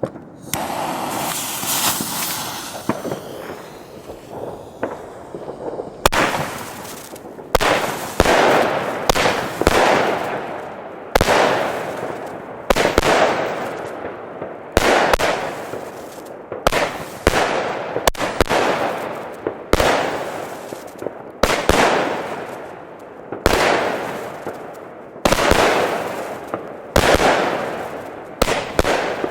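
Funke Argento firework battery firing. A hiss for the first few seconds, then a steady run of shots about every one to one and a half seconds, each a sharp report trailing off in a long fading hiss.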